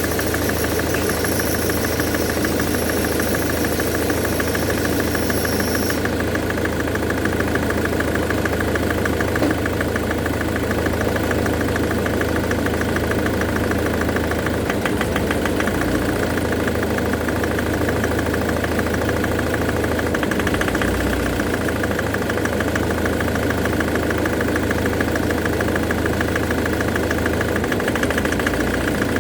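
Jaguar X-Type engine idling steadily with a fast, even knock: the heavy knocking that is put down to the number 4 fuel injector. A faint high whine runs over it and stops about six seconds in.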